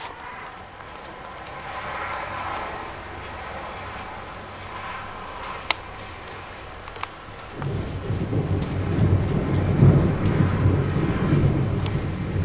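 Thunderstorm: rain falling steadily, then about two-thirds of the way through a loud roll of thunder rumbles in and swells.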